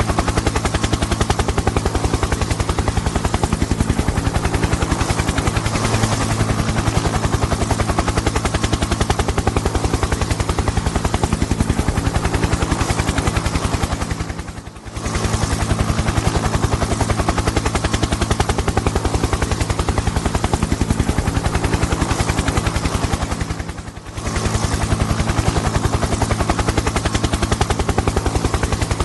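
Helicopter engine and rotor sound effect: a fast, even chopping pulse over a steady low engine drone, dipping away briefly and returning twice, about 15 and 24 seconds in.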